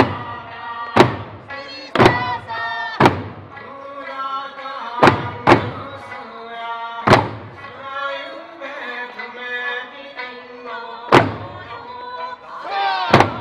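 Eisa taiko drumming: large barrel drums and small paranku hand drums struck together in unison, loud single strikes about once a second, with a pause of a few seconds in the middle. Between the strikes an Okinawan folk song is sung to sanshin accompaniment through the PA.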